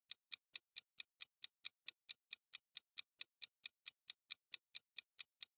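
Quiet countdown-timer sound effect: evenly spaced clock-like ticks, about four and a half a second, running while the time to answer counts down.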